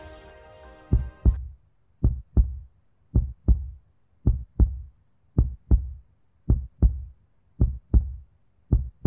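A slow heartbeat: paired low thumps, lub-dub, repeating about once a second, after electronic music fades out in the first second.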